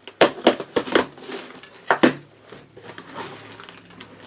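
A ballpoint pen's tip scraping and tearing through plastic packing tape on a cardboard shipping box: a run of sharp, crackling scratches, bunched in the first two seconds and sparser after.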